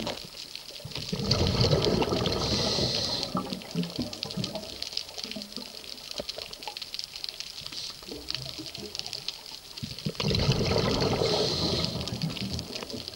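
Scuba diver breathing through a regulator, heard underwater: a burst of bubbling exhaust about a second in and another about ten seconds in. Faint crackling ticks fill the quieter stretch between.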